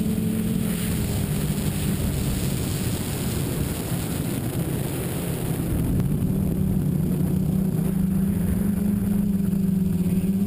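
Tricopter's electric motors and propellers humming in flight, a steady pitch that wavers slightly, getting a little louder about halfway through.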